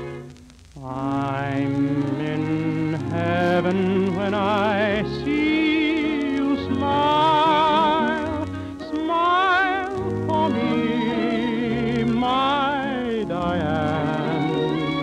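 A tenor singing a slow sentimental ballad with orchestra, in long held notes with wide vibrato. There is a short breath pause about half a second in.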